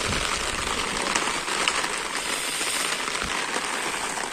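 Steady hiss of heavy rain falling on open ground and wet dirt, with a couple of brief low bumps, one at the start and one about three seconds in.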